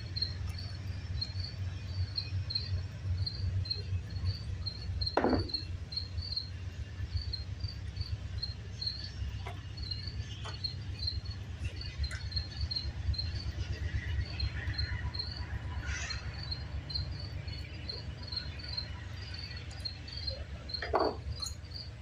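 A cricket chirping steadily at one high pitch, about two or three chirps a second, over a steady low rumble. Two sharp knocks come about five seconds in and near the end.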